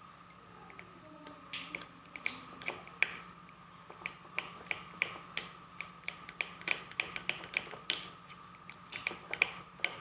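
A series of sharp, irregular clicks or taps, several a second, starting about a second in and growing busier, over a faint steady hum.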